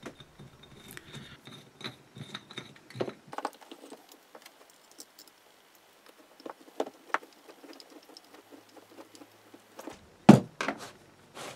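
Small metallic clicks and clinks of a hex key working M5 cap screws and of steel engine parts being handled on a bench, with one louder knock near the end.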